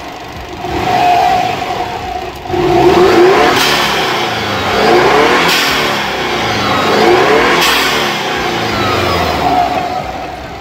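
Subaru Forester XT's turbocharged flat-four boxer engine, warm and on fresh oil, revved up and let fall back several times.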